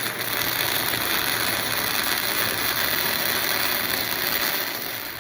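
Electric welding arc crackling steadily as a bead is run, welding the flattened latch piece onto the metal gate. It starts abruptly and dies away near the end as the arc is broken.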